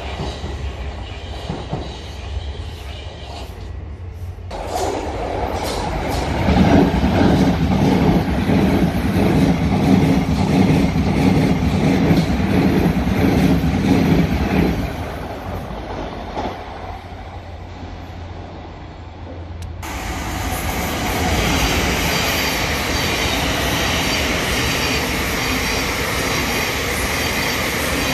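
Thameslink Class 700 electric trains running through the station. First a loud passage with a rapid, even clatter of wheels over the rail joints, which eases off. After a break, a second train passes close with a steady rushing of wheels on rail.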